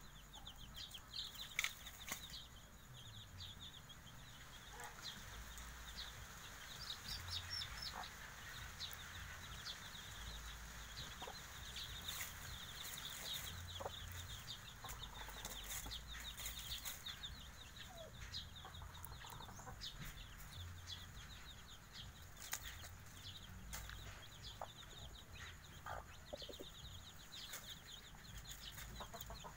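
Five-day-old Javanese kampung chicks peeping continuously in quick, high, short notes, with a few lower clucks from the mother hen and scattered ticks and rustles from scratching in dry leaves.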